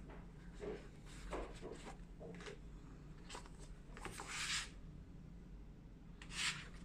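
Packaging being handled during an unboxing: faint small clicks and rustles, with two louder brief rustles about four and six and a half seconds in.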